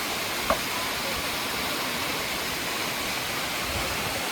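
Waterfall: a heavy, steady rush of falling water. A short click about half a second in.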